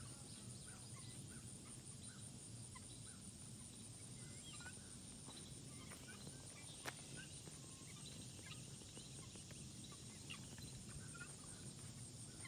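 Faint bird calls: many short chirps scattered throughout, over a steady high-pitched hiss, with one sharp click about seven seconds in.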